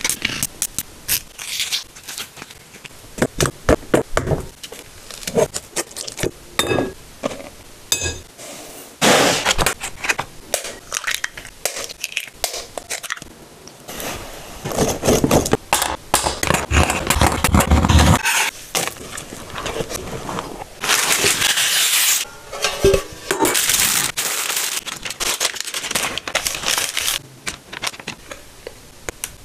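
Close-up kitchen preparation sounds: a run of short clicks, knocks and scrapes as bananas and ingredients are handled, then a wire whisk scraping and beating eggs, sugar and cocoa in a glass bowl, and thick chocolate batter sliding from the bowl into a paper-lined baking tin.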